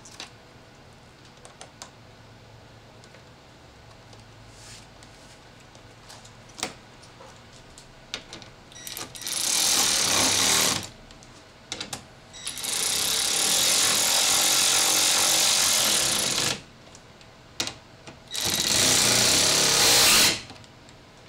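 Cordless 3/8-inch impact wrench hammering on bolts in three runs, about two, four and two seconds long, after a few light clicks of parts being handled.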